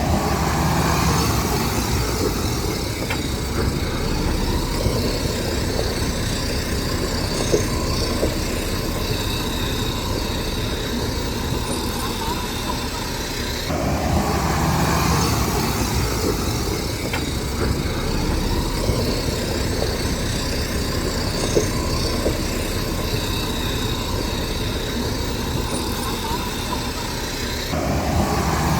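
Heavy diesel earth-moving machinery running and working: a steady, loud engine and machine noise. The sound changes abruptly about halfway through and again near the end.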